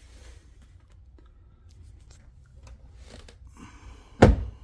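Faint clicks and rustling from hands working on a Porsche Taycan's side mirror, then a single loud thump near the end as the hand pushes on the mirror housing.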